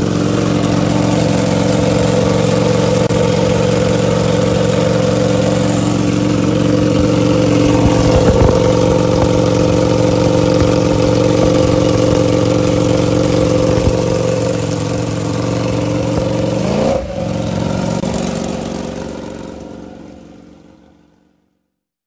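Ducati Panigale V4 R superbike's V4 engine idling steadily through an Akrapovic race exhaust, with one quick throttle blip about seventeen seconds in. The sound fades out near the end.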